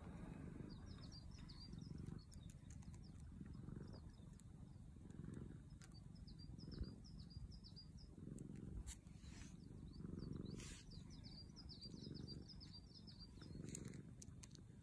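Domestic cat purring as it is stroked: a soft, low rumble that swells and fades with each breath, about every second and a half. Small birds chirp in quick runs of high notes behind it.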